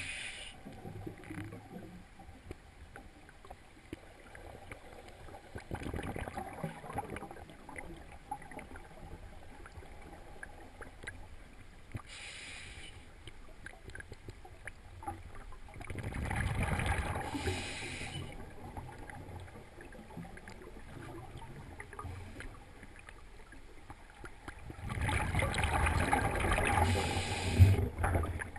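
Scuba diver breathing through a regulator, heard underwater: three louder rushing breaths with bubbling, about twelve seconds in, around sixteen to eighteen seconds and loudest near the end, over a faint steady water hiss with scattered small clicks.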